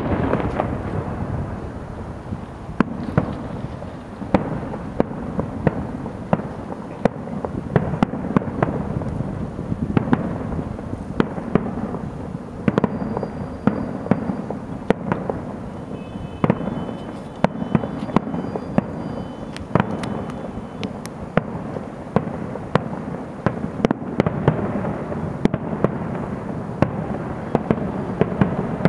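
Fireworks display: many sharp bangs and crackling pops at an irregular, rapid pace over a continuous rumble of bursts.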